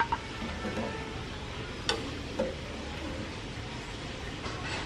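Pot of fish soup simmering on the stove with a steady hiss, and a metal ladle stirring in the stainless steel pot, clinking against it a few times, twice around two seconds in.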